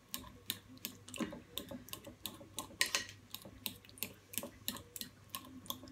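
Metal fork clicking and tapping against a serving dish in quick, irregular strokes while mashing chopped canned tomato.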